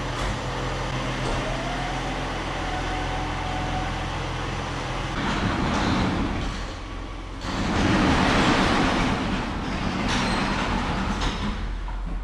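A two-wheel-drive John Deere tractor's diesel engine running steadily as it pulls out, then from about seven seconds in an overhead sectional garage door rumbling down its tracks as it closes.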